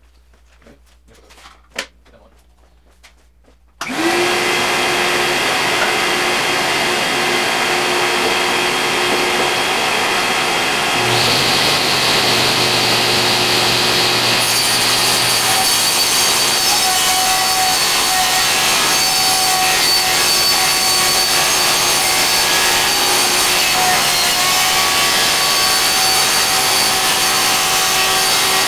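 Power saw starting about four seconds in and running steadily through plywood, a continuous cutting noise with a steady whine over it.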